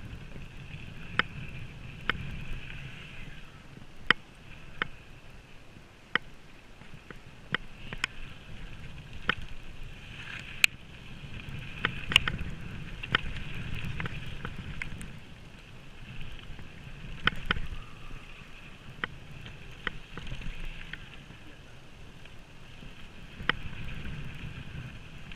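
Mountain bike riding fast down a dirt flow trail: tyres rolling over the packed dirt and wind on the microphone make a low rumble, while sharp irregular clacks of chain and frame ring out over the bumps. A high buzz comes and goes in spells, typical of the rear freehub while coasting.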